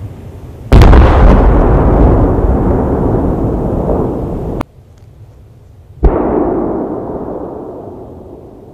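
Two firework shell bursts: a loud boom less than a second in with a long decaying tail that stops abruptly, then a second boom about six seconds in that fades away slowly.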